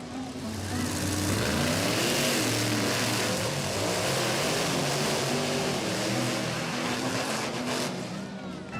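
Monster truck engine sound effects revving, rising and falling in pitch, over a steady rushing noise that fades toward the end.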